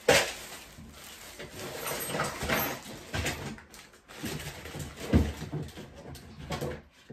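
Clear plastic wrapping crinkling and rustling as it is handled, with a woman laughing softly. There is a sharp knock at the start and another about five seconds in.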